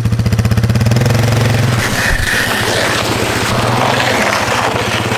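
Small petrol engine running hard with a fast, even pulse, then easing off to a lower, rougher note about two seconds in.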